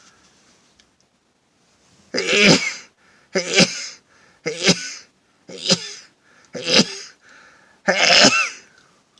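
A man sneezing six times in a row, about one sneeze a second, the last one the longest: a sneezing fit brought on by sniffing pepper.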